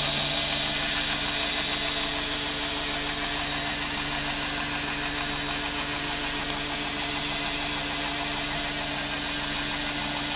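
Belt grinder running steadily: an electric motor hum with the abrasive belt running over its wheels.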